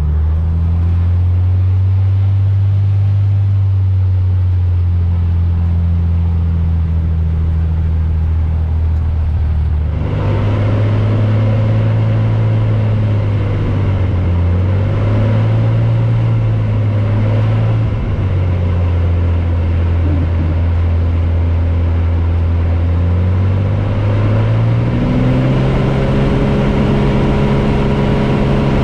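Engine running steadily, a low drone whose pitch shifts a few times and rises about three-quarters of the way through.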